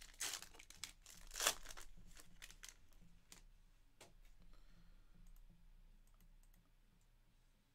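Foil wrapper of a Panini Revolution Basketball pack crinkling as the cards are slid out and handled, with a couple of sharper crinkles in the first two seconds, then only scattered faint clicks of card handling.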